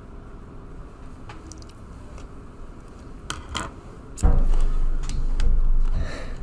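Faint clicks over quiet room noise, then, about four seconds in, a sudden loud low rustling rumble lasting about two seconds.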